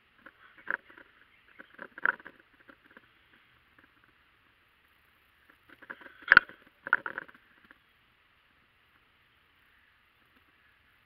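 Scattered rustles, clicks and knocks from the hunter shifting a gun-mounted camera inside a ground blind, in short clusters with one sharp knock about six seconds in.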